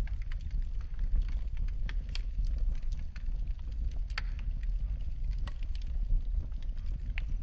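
Wood fire burning in a fireplace: irregular crackles and pops over a steady low rumble, with a few louder pops.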